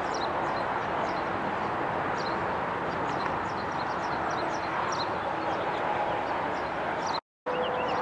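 Outdoor ambience: a steady background rush with small birds chirping repeatedly. The sound drops out for a moment near the end, and a steady tone starts just after.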